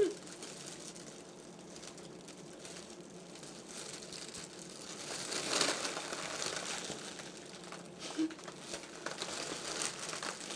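A helium balloon being handled and squeezed, crinkling and rustling irregularly as the girls try to draw helium out through a hole poked in it. The rustling is loudest about halfway through.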